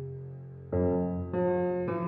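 Background piano music: slow, sustained chords, with a new chord struck about two-thirds of a second in and another a little after a second, each left to ring and fade.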